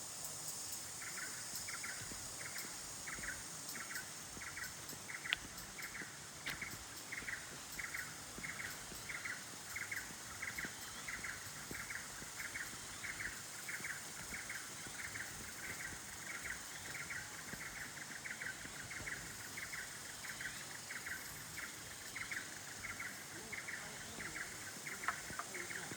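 An animal's short chirping call repeated steadily, about one and a half times a second, over a steady high hiss, with two brief clicks about five and six seconds in.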